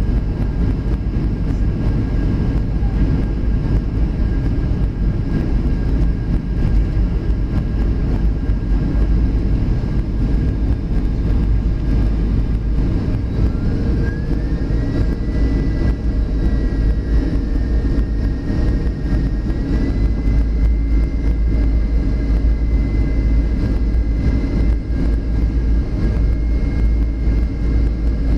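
Steady roar of engine and airflow noise inside a Boeing 737's passenger cabin during its descent to land. A thin whine rises about halfway through and steps a little higher a few seconds later.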